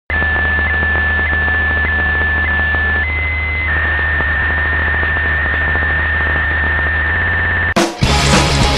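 Steady electronic drone of hiss and low hum with a held high tone that steps up briefly a few seconds in. Near the end it cuts abruptly into loud rock music with drums.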